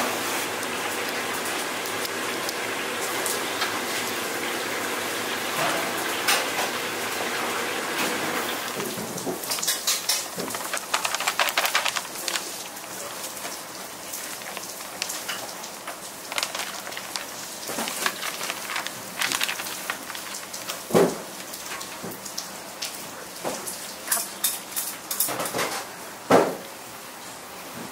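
Steady kitchen background noise. About a third of the way in it gives way to flour pouring from a bag onto chopped kimchi in a large stainless-steel bowl, then gloved hands working it into kimchi-pancake batter. The mixing makes a crackly rustle, with occasional sharper knocks against the bowl near the end.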